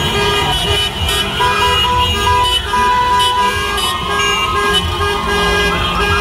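Car horns honking over and over, held tones starting and stopping, over the low rumble of street traffic and a crowd on foot.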